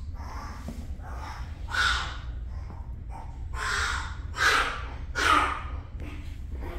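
A dog giving about four short, harsh, hoarse cries, the loudest two close together a little past the middle, over a steady low hum.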